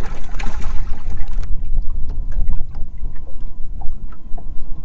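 Strong wind buffeting the microphone on a small boat, a loud, uneven low rumble, with a brief hiss in the first second and a half and a few light clicks.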